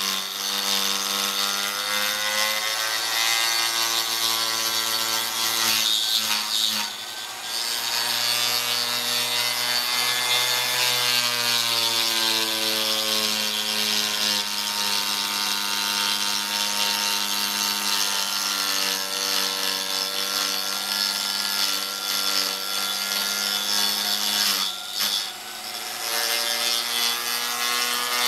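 Handheld electric router slowed by a speed controller, its carbide bit milling a rabbet into a cast-iron machine table. A steady motor whine whose pitch wavers under the cut, over a harsh cutting hiss, with two brief dips, about seven seconds in and near the end.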